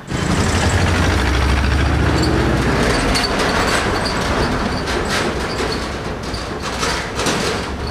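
Outdoor background noise: a steady low rumble of vehicle traffic over a constant hiss, with scattered clicks. The rumble is strongest in the first three seconds.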